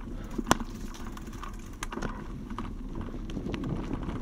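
Bicycle rolling slowly over a rough dirt forest trail: a steady low rumble of tyres and frame, with scattered rattling clicks and knocks, the sharpest about half a second in.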